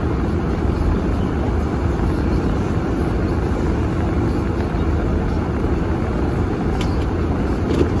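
Car on snow tyres moving slowly over packed snow, heard from inside the cabin: a steady low rumble of engine and tyre noise with no change in pitch.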